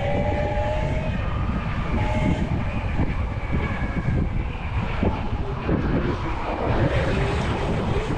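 Wind buffeting the microphone and the rush of riding an electric motorbike along a city street, a steady low roar with faint whining tones drifting in and out.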